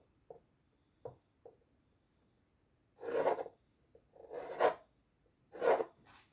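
Pencil lead scratching across drawing paper in three short strokes, about a second apart, after a few faint ticks.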